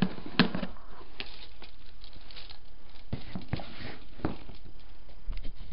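Handling noise: scattered, irregular clicks, knocks and rustles, the loudest near the start.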